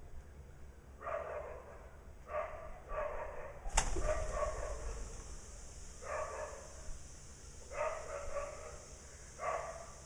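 A dog barking repeatedly, about nine short barks at irregular intervals, with a sharp click just before four seconds in.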